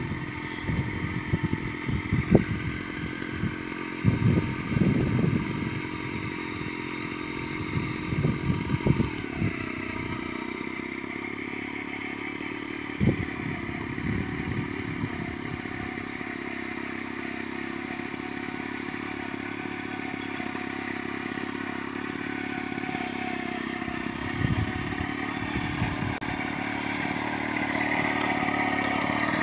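Small engine of a Tratorito walk-behind mini tiller running steadily while the tiller works the soil. Irregular knocks and clatter from the rotary tines come thickly over the first ten seconds or so, then only a few times later.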